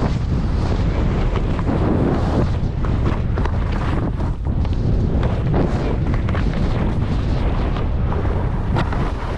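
Wind blasting the microphone while skiing fast, with skis scraping and chattering over chopped-up, tracked snow and many short knocks as they hit bumps.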